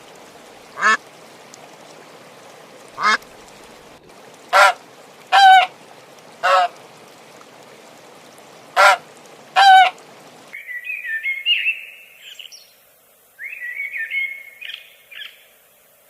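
Waterfowl calling in short single calls, about seven in ten seconds, some in quick pairs. About ten seconds in the sound cuts to a small bird chirping in quick high notes.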